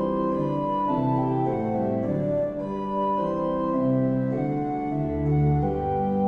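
Organ playing a slow passage of held chords, the notes changing about every half second, with a deep bass note entering about five seconds in.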